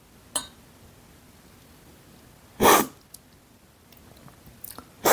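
Brewed coffee slurped hard off a metal tasting spoon, cupping-style: two short, loud slurps, one about halfway through and one at the end. Near the start the spoon gives a light clink against the glass.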